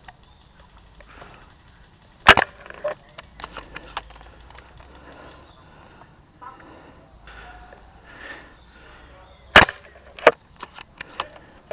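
Airsoft guns firing single shots: a sharp crack about two seconds in, a few fainter ones just after, then two more close together near the end.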